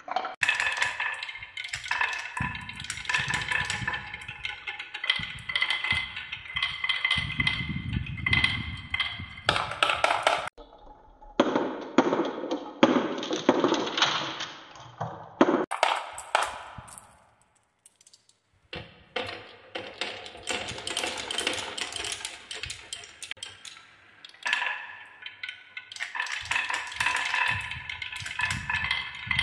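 Many glass marbles rolling down wooden tracks of a marble run, rumbling along the wood and clicking and clattering against each other and the track walls. The clatter is dense and ringing, with a brief lull a little past halfway.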